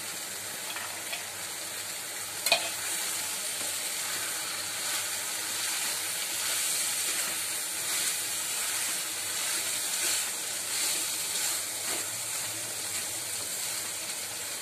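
Potatoes, fox nuts (makhana) and masala sizzling in oil in a kadhai while a wooden spatula stirs them through, with one sharp knock about two and a half seconds in.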